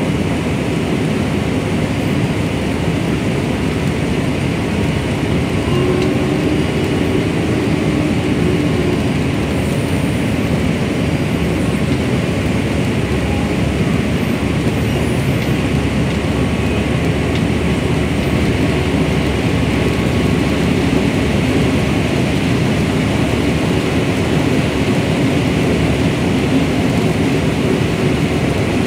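Corn combine harvester running steadily, its row header feeding in standing dry corn stalks: a loud, continuous mechanical noise of engine and harvesting machinery.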